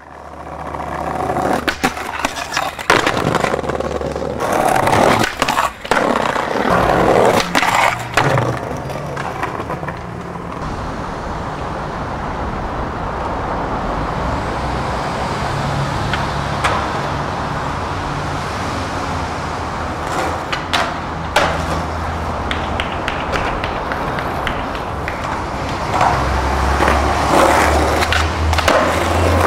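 Skateboard wheels rolling on concrete, broken at intervals by sharp clacks of the tail popping and the board landing. Near the end the board scrapes along a concrete ledge, over a low steady hum.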